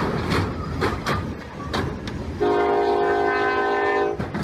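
Locomotive air horn sounding a long, loud chord of several notes, starting about two seconds in, over the rumble of a train on the tracks; before the horn the rumble is mixed with a few sharp knocks.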